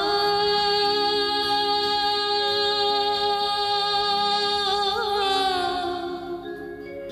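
Song accompanying a stage dance: a woman's voice holds one long sung note, wavers in a brief ornament about five seconds in, then softens near the end.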